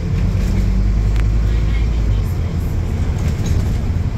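Onboard sound of a Scania N230UD double-decker bus under way: its diesel engine drones low and steady, easing off about halfway through, with road noise and cabin rattles.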